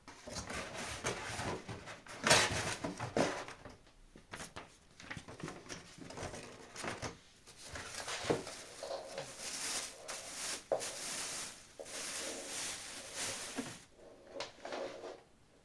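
Packaging and a boxed fan heater being handled: irregular rustling and scraping with scattered clicks and knocks, loudest about two seconds in.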